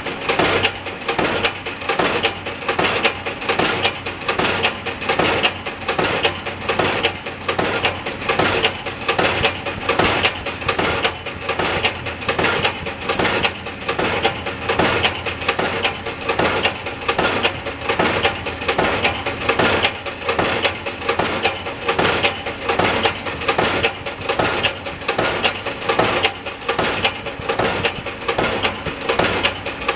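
Pile-driving hammer striking a bridge pile in a steady, even rhythm of blows, a little more than one a second, with a steady low hum underneath.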